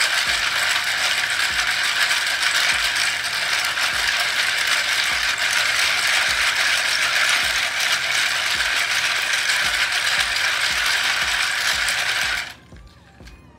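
Loose plastic keycaps clattering against one another in a dense, rapid rattle as they are washed, cutting off suddenly about a second before the end.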